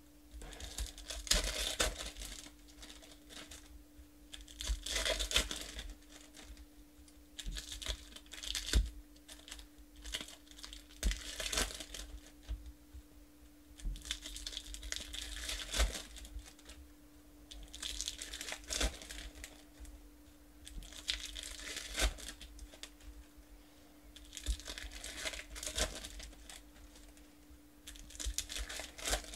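Foil football trading-card pack wrappers being torn open and crinkled by hand, in bursts every three to four seconds, with soft knocks from handling the cards and a faint steady hum underneath.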